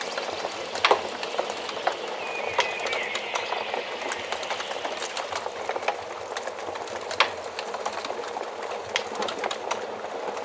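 Wood fire crackling in a fireplace: a steady hiss with many sharp pops and snaps, the loudest about a second in and about seven seconds in.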